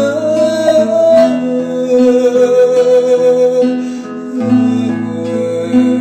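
Instrumental break in a gospel song: acoustic guitar strumming under a long held melody note, with the bass dropping out about a second in and coming back later.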